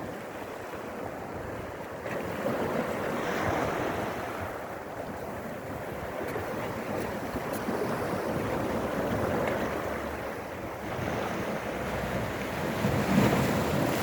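Sea surf washing onto a pebble shore and splashing against rocks, swelling and easing as each wave comes in, with the biggest surge near the end.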